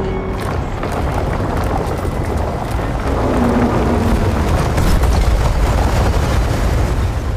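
Loud, dense low rumble from a film battle sound mix, with a few short crackles. It swells louder about halfway through.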